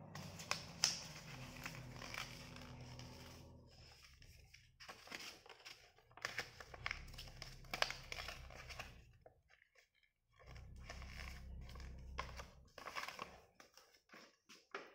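A sheet of paper being folded and creased by hand: irregular rustling and crinkling with sharp crackles as the folds are pressed flat. A low background hum comes and goes.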